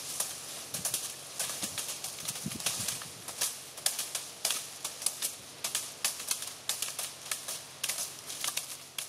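Many wooden sticks beating sun-dried bay laurel branches, a dense, irregular clatter of sharp cracks and dry rustling as the leaves are knocked off the branches.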